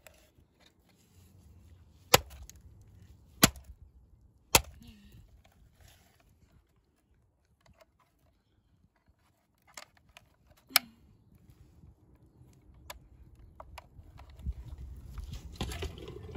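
Hammer blows striking the plastic body of a Vax Gator Pet handheld vacuum: three sharp hits about a second apart, then after a pause another hard hit with a couple of lighter knocks around it. A rushing noise builds up near the end.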